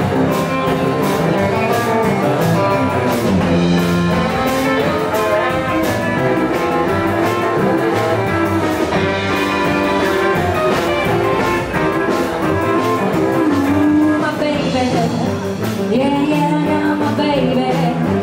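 Live blues band playing a 1950s-style blues number with electric and acoustic guitars, saxophone, drum kit and upright bass, a wavering lead line over a steady beat.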